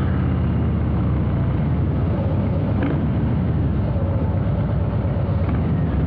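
Harley-Davidson Breakout's Milwaukee-Eight 117 V-twin running through a Rinehart exhaust as the bike is ridden, a steady low engine note.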